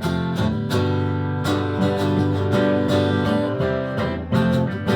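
Live song played on strummed acoustic guitar, steady chords in an instrumental passage with no singing, the last chord ringing on near the end.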